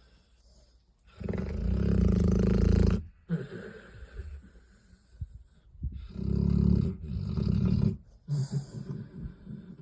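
Sleeping dog snoring loud: two long, low snores, about two seconds each and some four seconds apart, with softer, ragged breaths between them.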